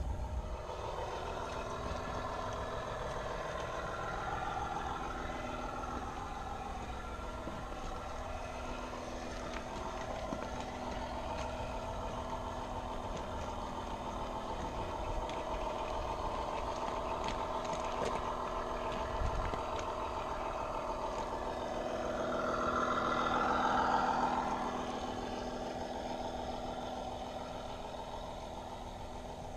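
Large-scale model train running on outdoor track: a steady engine-like mechanical drone with a light rattle. It grows louder for a couple of seconds about three-quarters of the way through, then eases off.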